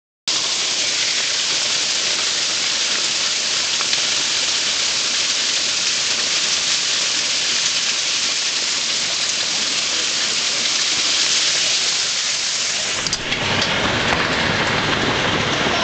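Hail coming down steadily: a dense, even hiss of hailstones striking the ground and nearby surfaces. About thirteen seconds in, the sound turns fuller and deeper.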